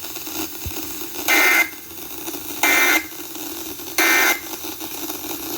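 Emergency Alert System end-of-message digital data bursts: three short, warbling buzzes about a second and a half apart, with faint radio hiss between them. They mark the end of the test alert.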